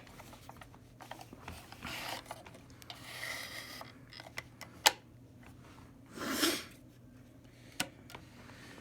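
Scattered sharp clicks and knocks with soft rustling, like handling and moving about, and a brief louder swish about six seconds in.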